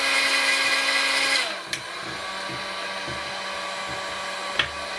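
A 2000-watt heat gun blowing hot air, its fan whine stepping down to a lower pitch and a quieter level about a second and a half in, then running steadily. Two short sharp clicks, the louder one near the end.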